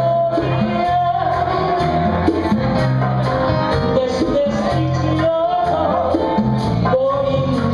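A woman sings a Latin melody into a microphone with a live band: electric bass, piano and drums with cymbals.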